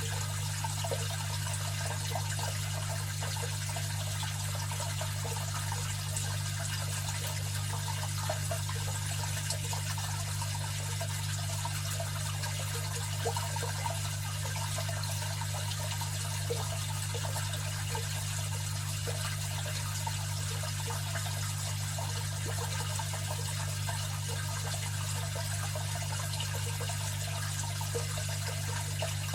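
Aquarium filter running: water trickling and splashing steadily over a low, even hum from the pump motor.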